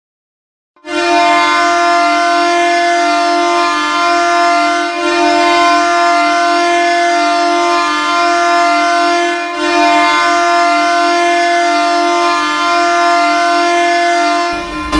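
Ice hockey arena goal horn sounding steadily as a low chord, dipping briefly about five and about nine and a half seconds in. An electronic goal song starts just before the end.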